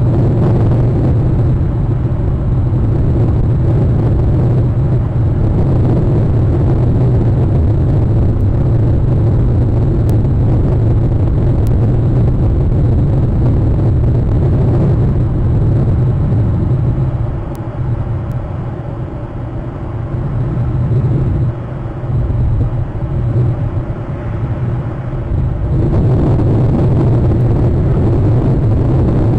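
Wind buffeting an outdoor webcam microphone: a loud, steady low rumble that weakens and wavers for several seconds past the middle, then returns at full strength.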